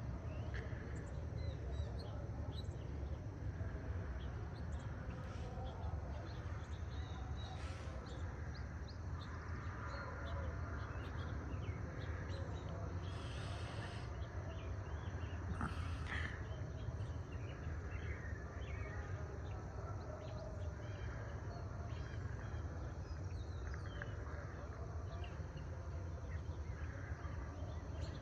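Rural dawn ambience: birds chirping here and there over a steady low rumble, with a couple of brief higher calls about halfway through.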